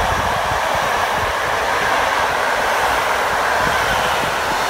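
Passenger coaches of a TLK night train rolling past a station platform. There is a steady rushing rumble from the wheels on the rails, with irregular knocks over the rail joints.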